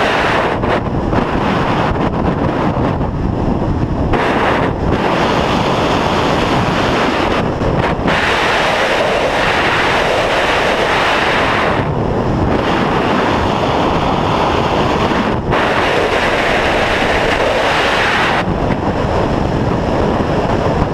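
Airflow rushing over a camera mounted on a Grob G-103 glider's wing in flight: a loud, steady wind noise on the microphone, with no engine. Its hiss thins and comes back several times as the airflow changes.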